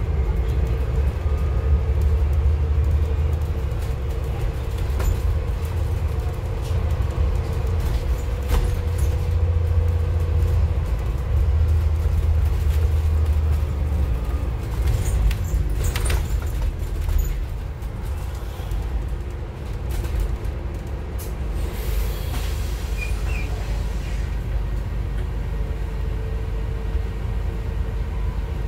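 Scania N280UD double-decker bus with its Scania DC09 CNG engine and Voith automatic gearbox, heard from the upper deck: a deep steady drone under way that eases off about halfway through as the bus slows, with a few rattles and a brief hiss as it pulls up at a stop.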